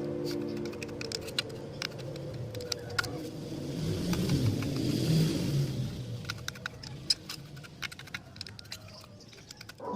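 A passing vehicle: its noise swells to a peak about five seconds in and fades away, over scattered light clicks and ticks.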